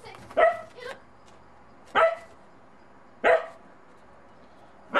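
Bedlington terrier puppy barking: four sharp single barks about a second and a half apart, with a softer one just after the first.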